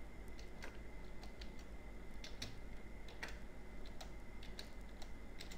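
Computer keyboard being typed on slowly: faint, separate keystrokes at an uneven pace, over a faint steady hum.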